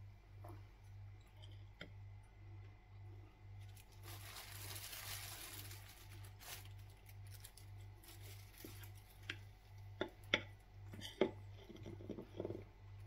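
A metal spoon clinks and scrapes against a ceramic plate several times near the end as it cuts into a slice of cake, with a soft rustle a few seconds earlier. A low pulsing hum runs underneath.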